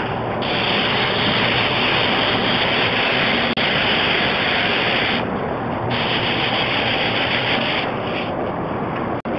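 Compressed-air paint spray gun hissing steadily as it sprays paint onto a wooden door. The hiss breaks off briefly twice, about five seconds in and again near eight seconds.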